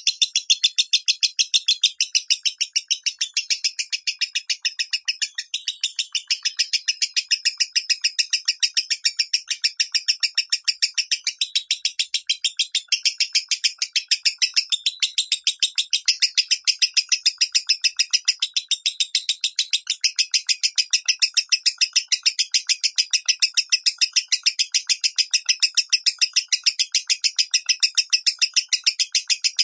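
Lovebird singing in the high 'minor' voice: an unbroken chatter of rapid, shrill chirps, about eight a second.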